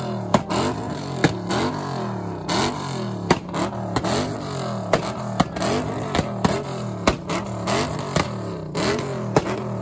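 Jeep Grand Cherokee Trackhawk's supercharged 6.2-litre Hemi V8 revved over and over in quick blips, about two a second, with loud sharp exhaust pops and bangs between the revs.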